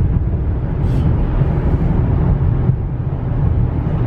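2016 GMC Canyon pickup cruising at a steady 60 mph, heard from inside the cab: a constant low rumble of road, tyre and engine noise.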